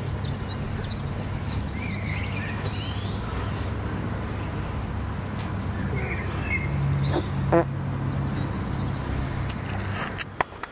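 Outdoor ambience: small birds chirping over a steady low rumble, with a short sharp clack about seven and a half seconds in.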